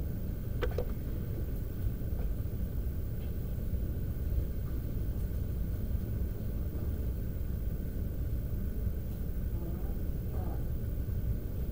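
Steady low background rumble, with a brief click a little under a second in.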